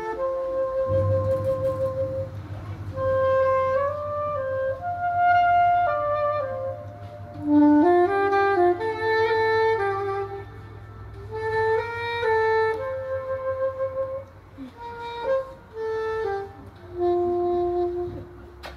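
Soprano saxophone playing a slow melody of long held notes over a low sustained accompaniment, the tune closing near the end.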